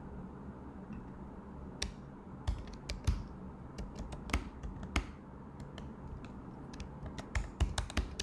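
Typing on a computer keyboard: irregular key clicks in short runs, with a pause of about a second and a half in the middle.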